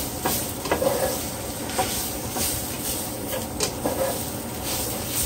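Beef strips sizzling in a hot skillet while a spatula stirs and scrapes them: a steady hiss broken by irregular scrapes and clacks. The pan juices have boiled away, so the meat is searing.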